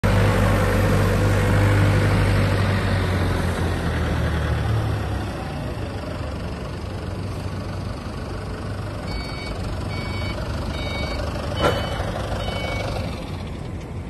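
Forklift engine running close by, fading over the first five seconds. From about nine seconds in, a reversing alarm beeps about six times, with one sharp knock among the beeps.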